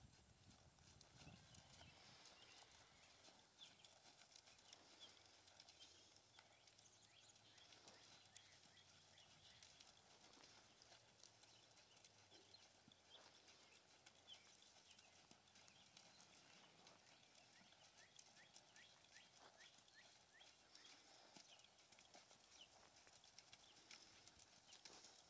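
Faint hoofbeats of a horse moving over sand, a steady run of soft ticks.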